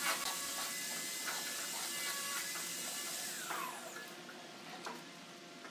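White cord being drawn by hand through a wooden chair's woven seat, a steady rubbing hiss of cord sliding over cord and wood. The hiss falls away about three and a half seconds in as the pull ends, with a few light taps of the frame.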